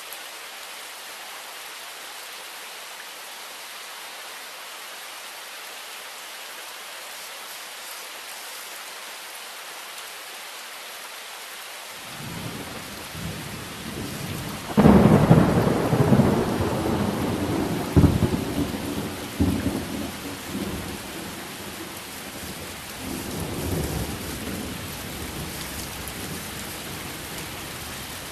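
Thunderstorm: steady rain hiss, then thunder. A low rumble builds a little before halfway, breaks into a loud clap just past halfway, and rolls on with another sharp crack and further rumbles while the rain keeps falling.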